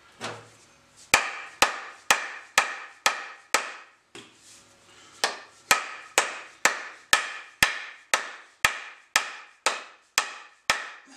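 Hammer blows on the butt end of a new wooden axe handle, about two a second, driving the axe head up onto the haft. A run of six blows, a pause of about a second and a half, then about a dozen more.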